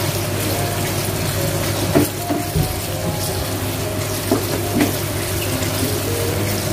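Grated coconut frying in oil in a stainless steel pan over low heat, a steady sizzle, with a wooden spatula stirring through it and knocking against the pan a few times.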